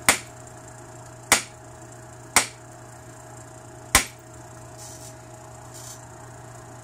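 Antler billet striking the edge of an obsidian preform four times, sharp clicking knocks spread over about four seconds, each knocking off a small flake to clean up the edge. Two faint brief hisses follow near the end.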